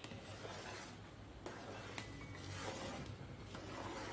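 Faint rubbing and handling noises with a few light clicks, over a low steady hum.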